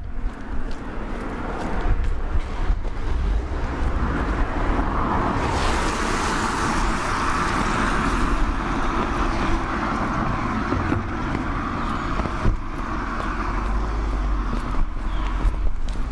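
Street ambience with a low rumble throughout. A car drives past, swelling up about five seconds in and fading away a few seconds later.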